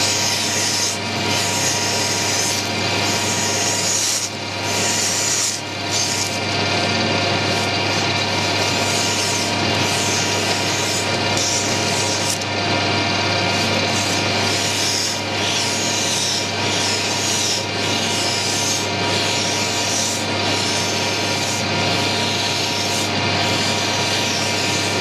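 Emery tape rubbing against a small metal handle spinning in a lathe, a steady abrasive hiss that swells and eases every second or so as the strip is worked back and forth, over the steady hum of the lathe running.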